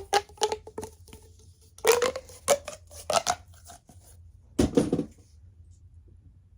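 Plastic fidget toys being handled and clacking together, in three short bursts of sharp clicks and knocks with a brief ring.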